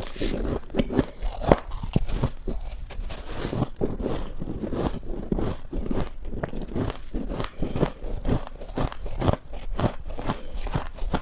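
Close-miked crunching and chewing of mouthfuls of powdery freezer frost: a dense run of crisp crunches, several a second, without pause.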